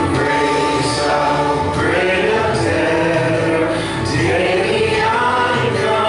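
A group of voices singing together with instrumental accompaniment: church singing.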